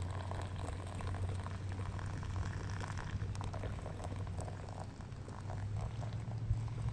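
Hot water poured slowly from a metal pot into a GSI pour-over coffee dripper, trickling through a paper filter onto coffee grounds, over a steady low rumble.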